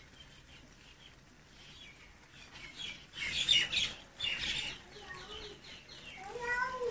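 Birds chirping: a dense burst of chatter about three seconds in, then a quick run of short repeated chirps and a longer call near the end.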